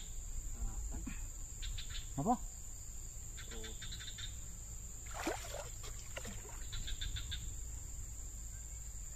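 Insect chirping in three short trains of rapid pulses over a steady high-pitched whine and a low steady rumble.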